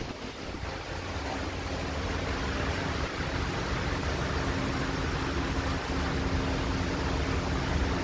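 Steady ventilation fan noise: an even rush of air with a constant low hum.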